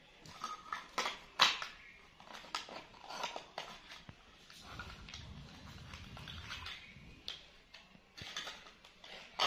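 Plastic toy tea-set dishes clicking and clattering as they are handled and knocked together, in scattered light taps, with a soft rustle about midway.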